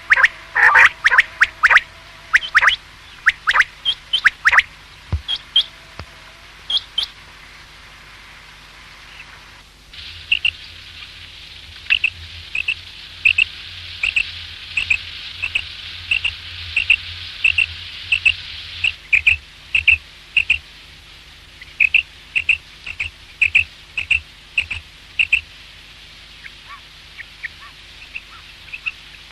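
Common quail calling. Quick, sharp high notes come in a cluster over the first few seconds. From about a third of the way in there is a long run of short, clipped notes at about two a second, which fades near the end. A low steady hum and, for part of the time, a hiss lie underneath.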